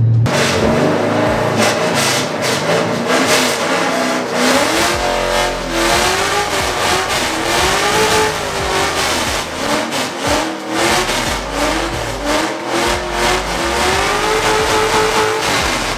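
LS1 V8-swapped Mazda RX-8 doing a burnout: the engine revs rise and fall over and over while the rear tyres spin and squeal on concrete.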